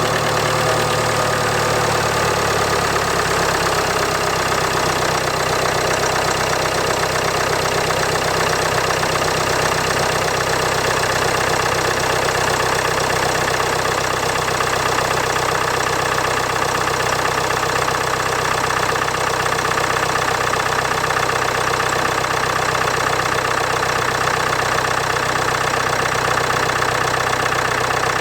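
Land Rover Discovery Sport's 2.0-litre four-cylinder Ingenium D180 diesel idling steadily just after a cold start; its note settles over the first few seconds. It is listened to for the rattle of a stretched timing chain, the known weakness of the 2016 Ingenium, though the owner can hear little difference before and after the chain was replaced.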